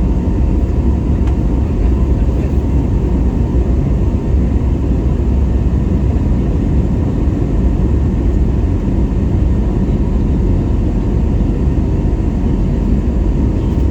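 Airbus A321neo jet engines and airflow heard from inside the cabin: a loud, steady rumble with a faint steady whine above it.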